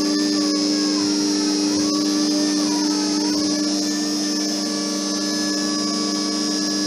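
Electric power steering pump from a Toyota MR2 running on 12 V: a loud motor whine over a steady low hum, its pitch dipping twice and then settling. The owner calls its noise quite a racket.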